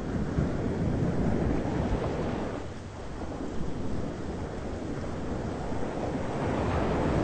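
Thunderstorm ambience: a continuous low, rushing rumble that eases briefly about three seconds in and then builds again.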